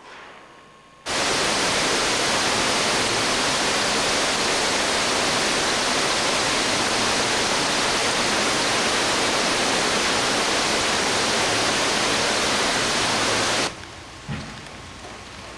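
Heavy rain pouring down: a loud, steady hiss that starts suddenly about a second in and drops away near the end to quieter rain.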